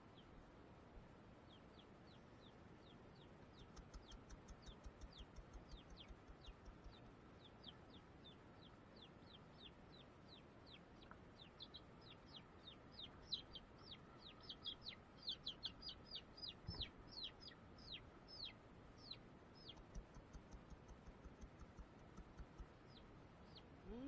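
A lone silkie chick peeping in a quick series of short, high, falling peeps, faint at first and louder about halfway through. It is the call of a chick left on its own.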